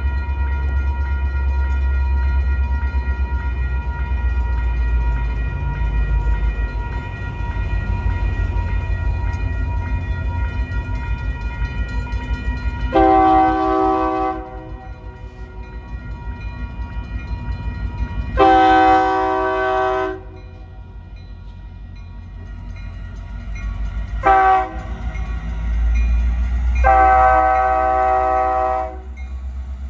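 Union Pacific diesel freight locomotive's air horn sounding the grade-crossing signal: two long blasts, a short one, and a final long one. Under it runs the low rumble of the approaching locomotives and train, with a steady ringing from the crossing's warning bell that fades about two-thirds of the way through.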